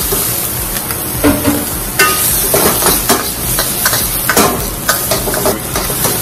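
Ground pork, green onion and freshly added garlic sizzling in hot oil in a wok, stir-fried with a metal wok ladle that scrapes and clinks against the pan over and over.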